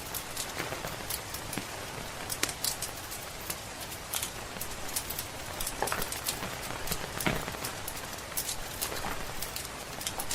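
Steady rain falling, with frequent short, sharp crackles and pops scattered irregularly through it, as from a wood fire in a fireplace.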